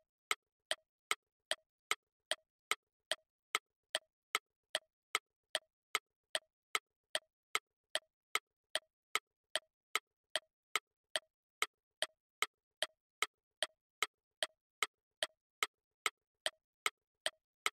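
Clock-ticking sound effect for a quiz countdown timer: even, sharp ticks about two and a half times a second.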